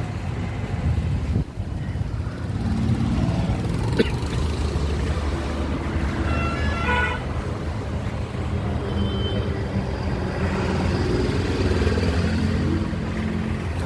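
Steady low rumble of road traffic, with a short pulsing vehicle horn about six to seven seconds in and a sharp click about four seconds in.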